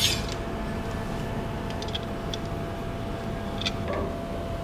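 A few faint light clicks and taps as a plastic clamp block is slid and fitted onto a smooth metal rod by hand, over a steady faint hum.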